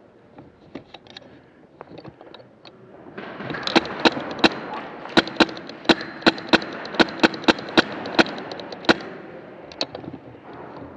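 Airsoft gun firing a string of about fifteen sharp shots, two or three a second at an uneven pace, over a rushing noise, with a few fainter clicks before the string and one shot after it.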